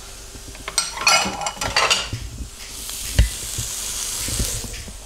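China plate clinking and clattering as it is handled and set down, then rounds of goat cheese sizzling in a hot grill pan, with a single thump about three seconds in.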